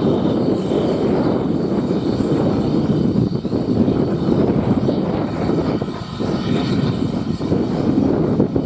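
Train passing close by: a steady, loud rumble of wheels and wagons on the track.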